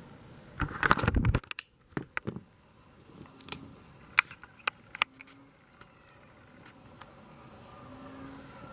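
Handling noise: a brief rustle about a second in, then about half a dozen sharp separate clicks over the next few seconds. After that only a faint steady outdoor background.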